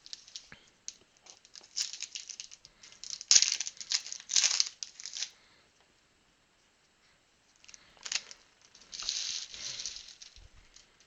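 Trading card pack wrappers being torn open and crinkled by hand, in two bouts of crackling with a short pause between.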